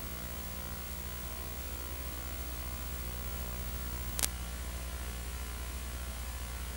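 Steady electrical mains hum with hiss on the recording's sound track, and a single sharp click about four seconds in.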